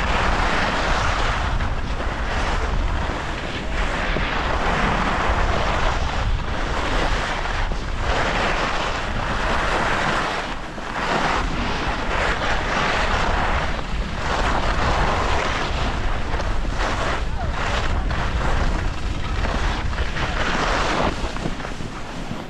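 Skis carving turns down packed snow: a scraping hiss that swells with each turn, about every two seconds, over a steady rumble of wind on the microphone.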